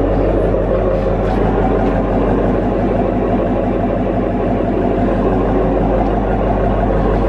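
Hemi V8 car engine idling steadily.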